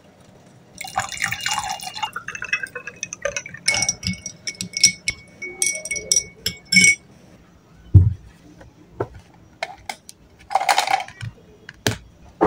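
Syrup and water poured over ice into a glass tumbler, then a metal stirrer clinking against the glass and ice, the glass ringing with each tap. A dull knock follows, then another short splash of liquid near the end.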